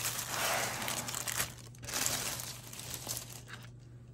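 Plastic shipping mailer bag crinkling and rustling as it is handled and pulled open, loudest in the first second and a half, then thinning to a few faint rustles.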